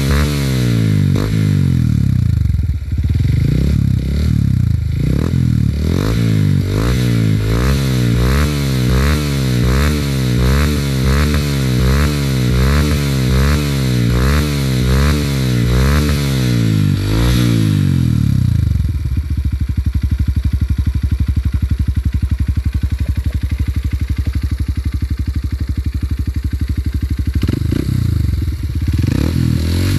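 Honda CRF150L single-cylinder four-stroke engine, breathing through a Norifumi TORC aftermarket exhaust on a stock engine and ECU, revved in quick throttle blips about twice a second. Near the middle it drops to a steady, bassy idle, and near the end it revs again.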